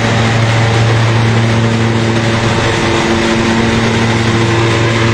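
Hazelnut husking thresher (patoz) running steadily: a constant machine drone with a broad rushing noise over it.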